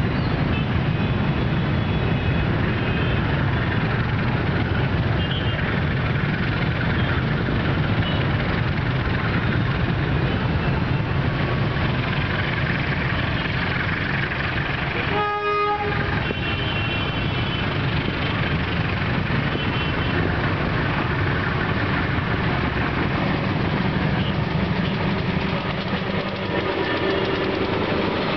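Diesel locomotive hauling a train of fuel tank wagons, approaching and then passing close by, heard as a steady rumble. About halfway through, the locomotive's horn sounds one short blast.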